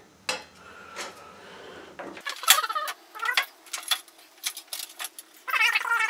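Rapid sharp clicks and short wavering squeaks from handling a self-adhesive LED strip and pressing it onto an aluminium channel, busier from about two seconds in.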